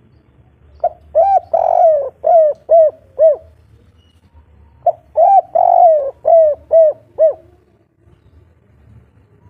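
Spotted dove (tekukur) cooing a local 'kuk 3' song twice. Each phrase opens with a short note, has a long drawn-out coo in the middle, and ends with three short coos.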